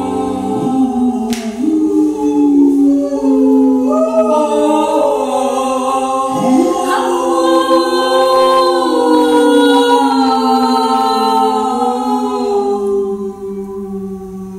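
A small group of voices improvising a cappella, holding overlapping sustained tones that slowly bend in pitch. Quick upward swooping cries rise through the texture about half a second in and again around six seconds in. Near the end the sound thins to a single low held tone.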